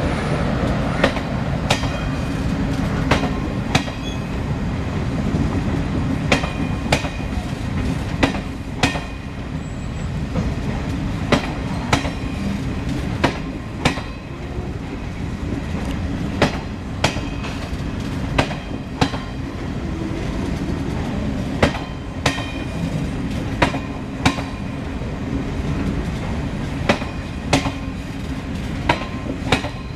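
Express passenger train coaches passing close by at speed: a steady rumble with sharp clacks as the wheels cross rail joints, the clacks mostly in pairs, every second or two.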